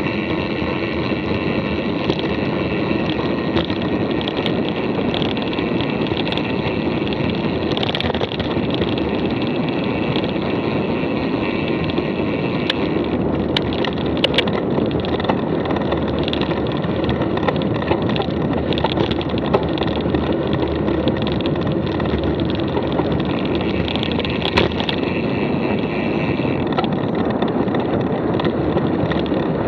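Mountain bike riding: steady rolling noise with scattered sharp clicks and rattles, a cluster of them around the middle.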